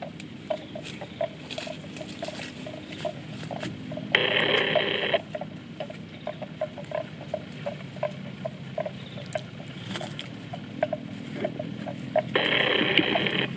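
Water buffalo cropping and chewing grass close by, a steady rhythm of short tearing crunches about three times a second. Two louder bursts of hissing noise, about a second long each, come about four seconds in and near the end.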